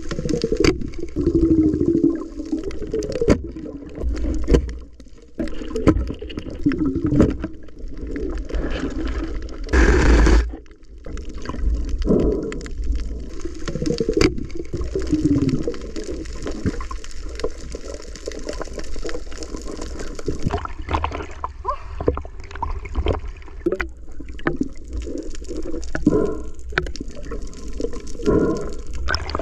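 Underwater water noise at a diver's camera: gurgling and sloshing over a steady low rumble, with scattered knocks and one louder rush of noise about ten seconds in.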